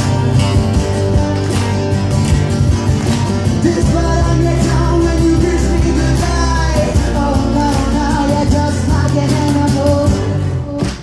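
Live acoustic rock performance: strummed acoustic guitar with a sung melody over it.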